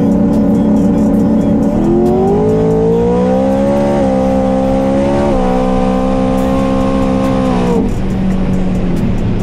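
Drag-racing pickup truck's engine at full throttle down the strip: it revs up after the launch, drops in pitch twice as it shifts up through the gears, then falls away as the driver lifts off.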